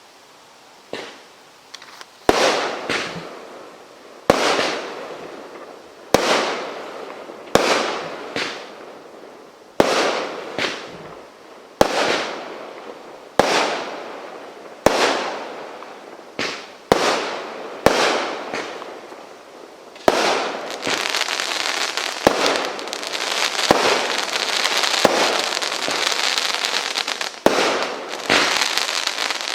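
Rain of Fire firework cake firing shot after shot, one sharp bang every one and a half to two seconds, each trailing off in a fading crackle. About two-thirds of the way through this gives way to dense, continuous crackling, with a few more bangs near the end.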